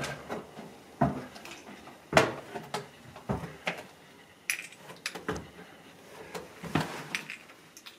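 Footsteps going down a flight of stairs and onto a basement floor: irregular knocks and scuffs about once a second.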